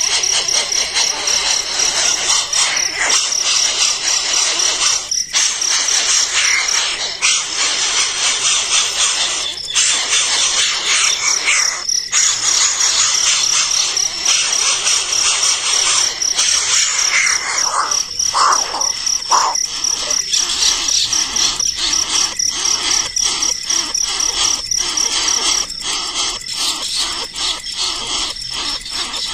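Outdoor chorus of high-pitched bird chirps over a steady insect trill, with short chirps repeating about twice a second in the second half.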